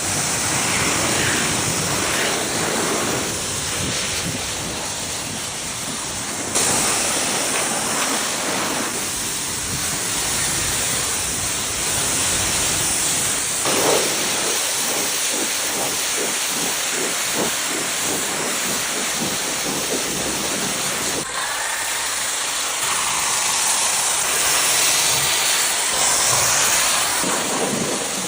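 Loud, steady hissing of a high-pressure spray jet, changing abruptly about six seconds in and again about two-thirds of the way through.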